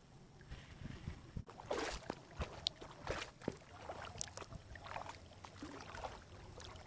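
Kayak paddling on calm water: the paddle blades dip and splash at an uneven pace, with small sharp knocks in between.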